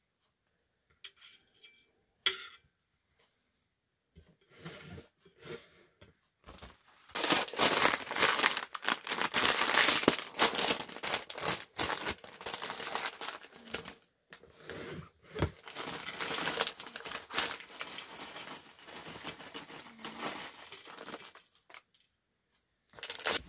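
A few light taps as sandwich halves are set on a plate, then a Walkers crisp packet crinkling for about fifteen seconds as it is opened and the crisps are tipped out onto the plate.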